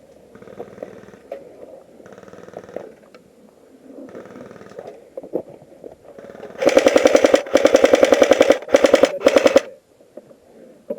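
Airsoft AKM-type rifle firing on full auto: three or four quick bursts of rapid, evenly spaced shots over about three seconds, starting a little past halfway. Before them there is only quieter shuffling noise.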